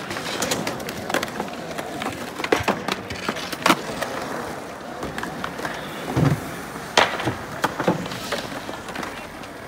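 Skateboards rolling on a hard court surface, with repeated sharp clacks of boards hitting the ground and obstacles. The loudest cracks come about a third of the way in and again a little past two-thirds.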